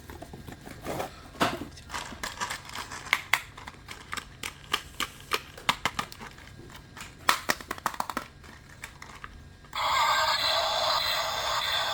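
Rapid clicks, scrapes and crinkling of plastic toys and packaging being handled during an unboxing. About ten seconds in, a toy vehicle's loud electronic sound effect suddenly starts.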